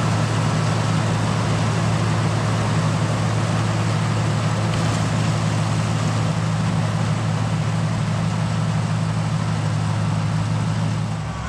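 Tractor engine running steadily with the corn picker's machinery running, a constant hum under a dense mechanical rush.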